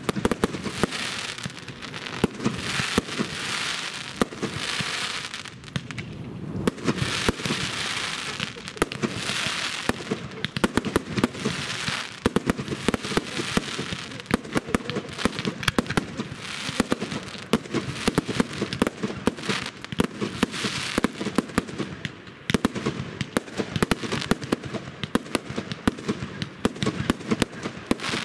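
Fireworks display: a dense, rapid barrage of bangs and crackling throughout, with swells of hissing between the reports.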